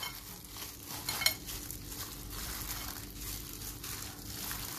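Wet squelching and squishing as a gloved hand kneads spice-marinated beef pieces in a glass bowl, with a light click against the bowl about a second in.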